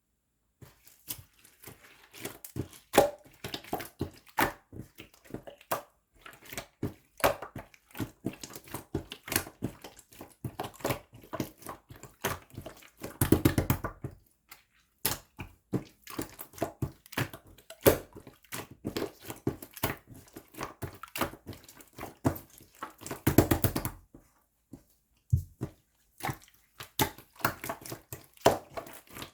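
Slime being squeezed, stretched and poked by hand, giving irregular sticky clicks and pops, with two bursts of rapid crackling about halfway through and again near the end.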